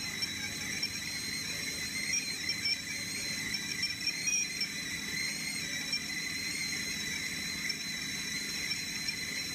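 Green enamel stovetop kettle whistling steadily at the boil, a shrill high tone with a slight waver.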